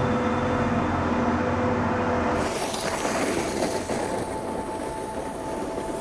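Propane-fuelled ice resurfacer's engine running with a steady low hum. About two and a half seconds in the hum drops away and a steady hiss with a faint high tone takes over.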